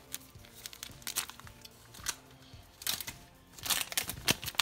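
Foil wrapper of a hockey card pack crinkling and tearing as it is worked open by hand, in scattered crackles that grow denser and louder near the end. Faint music sits underneath.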